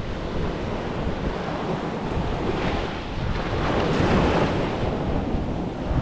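Ocean surf washing on a beach, with wind buffeting the microphone; a wave rushes in louder around the middle.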